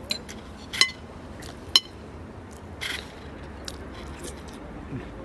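Cutlery clinking against dishes and glass at a meal: a few sharp, ringing clinks in the first three seconds, the loudest a little under two seconds in.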